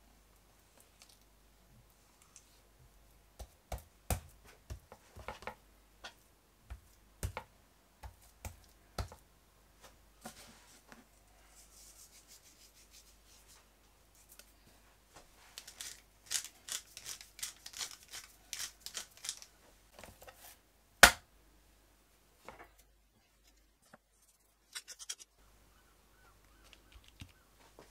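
Food prep on a wooden cutting board: a chef's knife slicing raw chicken breast with scattered knocks on the board, then seasoning with salt and a wooden pepper mill grinding in a dense rapid crackle. About three-quarters through there is a single sharp knock, the loudest sound, followed by soft handling as prosciutto is laid on the meat.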